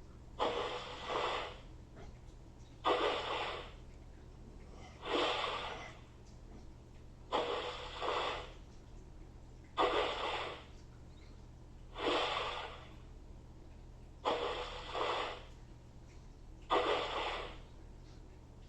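Kinderbot toy robot's speaker playing the same short, noisy, breath-like sound effect over and over, eight times at about one every two and a bit seconds, as it loops a sample in its sound test mode.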